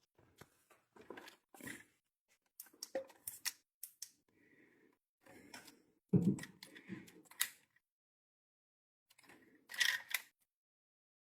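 Irregular clicks, taps and rustles of hands handling wiring and tools, with louder knocks about six seconds in and again near the end.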